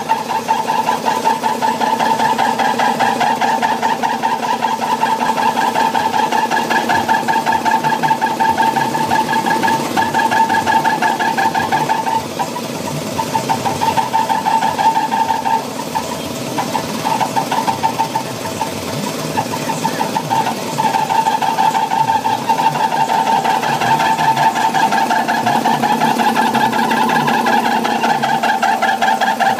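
Air compressor running with a fast, even clatter and a steady hum, its level dipping a few times partway through.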